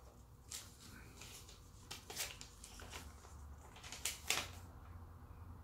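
Paper leaflet rustling and crinkling in the hands as it is handled and unfolded, in several short rustles, the loudest about two and four seconds in.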